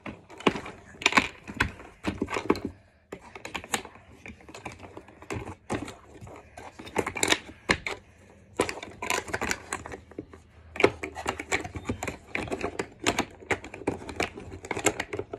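Hard plastic toy game pieces clicking and clacking as they are handled and fitted into place, many quick irregular clicks.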